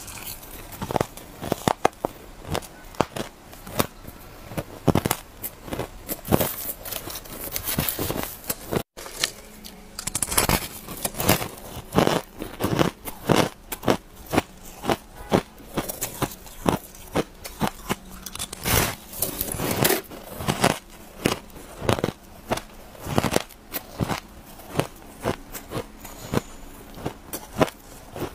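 Close-miked biting and chewing of shaved ice: dense, irregular crunches, several a second. About nine seconds in the crunching breaks off briefly, then resumes as bites into firmer chunks of packed shaved ice.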